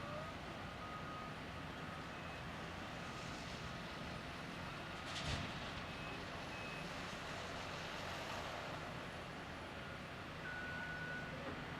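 Heavy construction machinery engines running steadily, with a reversing alarm beeping in short repeated tones near the start and a steadier alarm tone over the last second or so. A single sharp knock, the loudest sound, comes about five seconds in.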